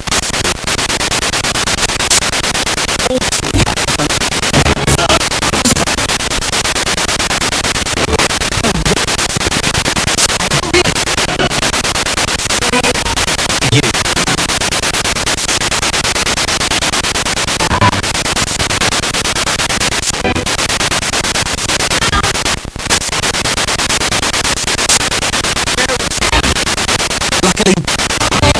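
Spirit box radio sweeping rapidly through stations: loud continuous static broken by short gaps and split-second fragments of broadcast voices and music.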